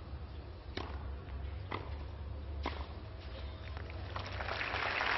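Tennis racket striking the ball three times about a second apart, serve, return and next shot of a rally, then a crowd applauding from about four seconds in. A steady low hum from the old broadcast sound runs under it.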